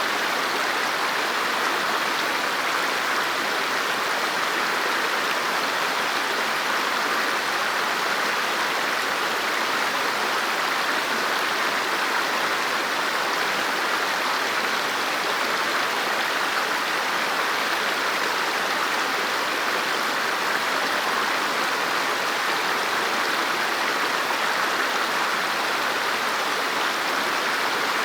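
River water flowing over rocks, a steady even rush without pause or change.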